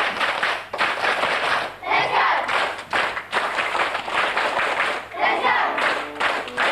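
A group of children clapping their hands, mixed with a hubbub of voices. A few pitched notes come in near the end.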